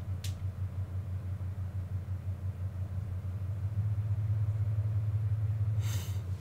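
Steady low mechanical hum with a fast, even throb. A short crinkle of vinyl being handled comes near the end.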